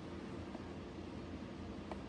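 Steady low room tone: an even hiss and hum, with one faint click near the end.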